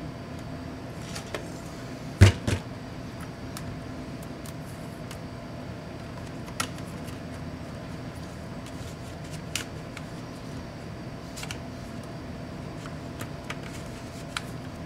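Plastic laptop display lid being handled and pried: a sharp double knock about two seconds in, then scattered light plastic clicks as a plastic pry card works along the lid's edge, over a steady hum.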